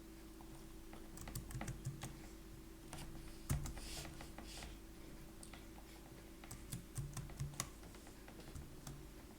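Computer keyboard typing: short runs of keystrokes with pauses between them.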